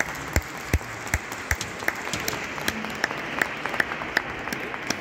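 Spectators' hand claps at the rinkside, a close clapper keeping an even beat of about two or three claps a second over a wash of scattered applause, welcoming a figure skater onto the ice before her programme starts.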